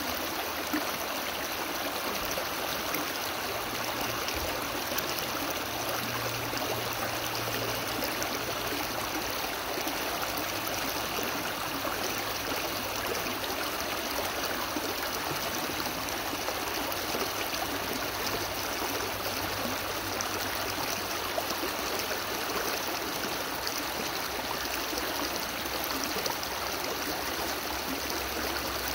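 Shallow rocky stream rushing and splashing in small rapids over stones and a fallen log, a steady, unbroken rush of water.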